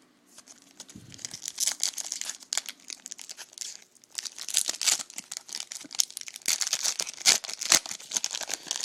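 A 2011 Topps Series 1 baseball card pack wrapper being torn open and crinkled: a run of crackling rustles with a short pause about four seconds in.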